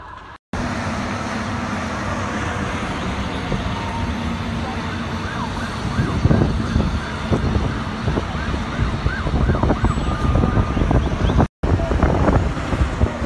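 Fire engine siren yelping in short rising-and-falling sweeps, strongest from about six to ten seconds in, over a loud steady rushing noise from the fire scene and hoses. The sound breaks off briefly twice.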